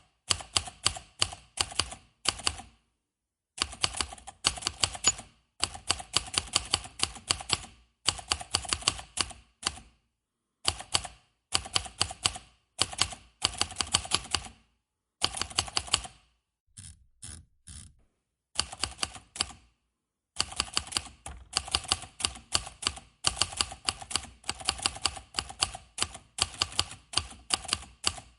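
Manual typewriter keys struck in fast runs of sharp clacks, several a second, broken by short pauses.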